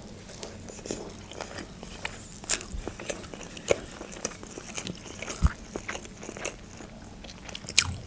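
Close-up chewing of a salmon-topped sushi roll: irregular wet mouth clicks and smacks.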